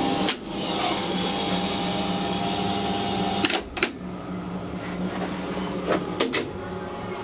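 Machinery in a hydraulic elevator's machine room: a steady hum with loud hiss that drops away about three and a half seconds in. Sharp clicks come once near the start, twice as the hiss drops, and a few more times about six seconds in, fitting the relays and contactors in the lift's control cabinet switching.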